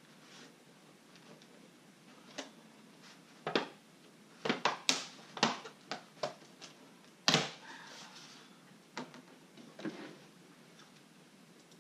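Thin plastic clamshell container of mini donuts being handled and opened: a string of sharp plastic clicks and crackles, most of them in the middle, with a few fainter ones near the end.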